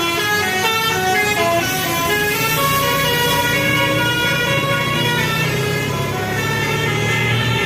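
A Basuri 'telolet' multi-tone bus horn playing a melody of short held notes that step up and down in pitch, over a steady low drone.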